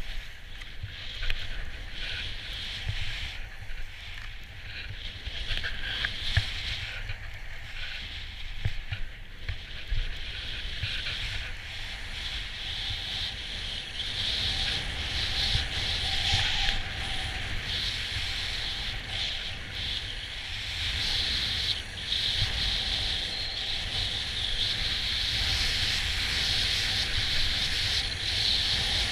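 Skis running over snow: a steady hiss with low wind rumble on the camera's microphone and a few scattered clicks. It becomes louder and steadier about halfway through.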